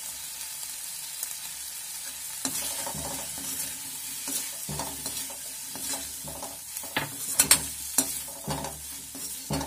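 Potatoes and tomatoes sizzling in a kadhai while a slotted steel spoon stirs and scrapes them. The stirring grows busier about two and a half seconds in, with sharp clinks of the spoon against the pan around seven to eight seconds.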